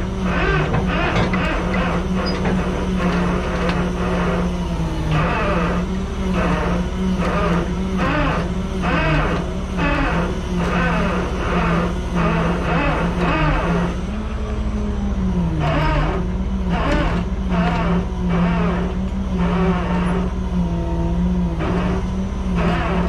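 Rollback tow truck's engine running and driving its bed winch as it drags a dead Combilift forklift up onto the deck. A steady whine wavers and dips in pitch about midway as the load changes, under a rhythmic clatter.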